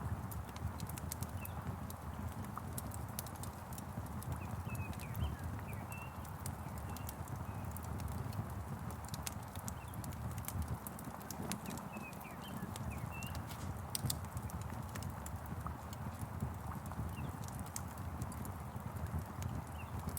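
Log fire crackling with irregular sharp pops over a steady low rumble and hiss of rain. Short bird chirps come in twice, about five and twelve seconds in.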